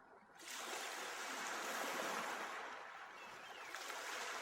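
Surf washing up a sandy beach: a steady hiss of breaking waves that swells and eases. A faint short high call, like a bird, sounds about three seconds in.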